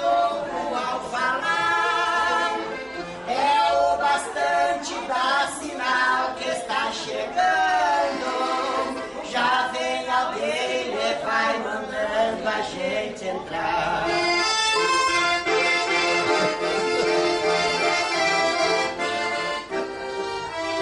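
Piano accordion playing while a woman sings along. About fourteen seconds in, the singing stops and the accordion carries on alone.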